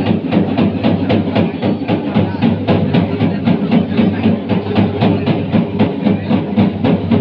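Loud temple-festival drumming: a fast, even beat of about three to four strokes a second, with steady pitched music over it.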